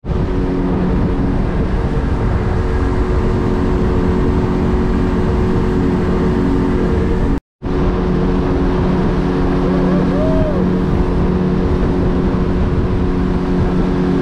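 Outboard motor running at a steady cruising speed on a small aluminium boat under way, its steady hum mixed with a rush of wind and water; the sound cuts out for an instant about halfway.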